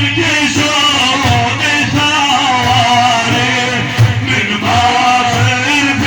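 Arabic religious praise song (madih): Middle Eastern music with a man singing a wavering melodic line over a low, repeating beat.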